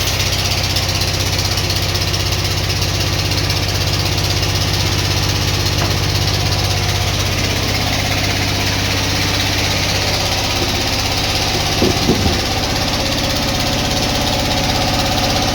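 Sawmill machinery running steadily with a constant mechanical drone, with a brief clatter of two or three knocks about twelve seconds in.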